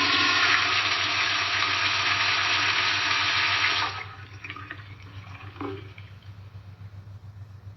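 Toilet flushing: a loud rush of water for about four seconds, which then falls off to a quieter trickle and gurgle as the bowl drains and refills. A low steady hum runs underneath.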